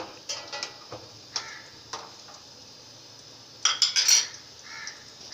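Metal kitchen utensils clinking and clattering against pots and dishes in a few scattered knocks, then a quick burst of sharp clatter about four seconds in.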